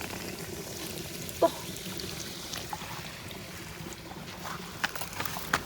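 Water trickling steadily, with a few short splashes and knocks as snails are picked by hand from wet mud, several coming close together near the end.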